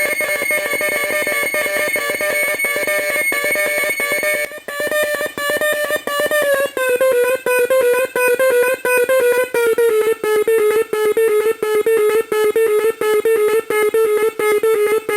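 Homemade drone synthesiser's audio oscillators sounding a steady, buzzy tone with a high whine above it. About four and a half seconds in, it changes to a fast, even pulsing rhythm, the note chopped on and off as a low-frequency oscillator triggers it, and its pitch slowly sinks.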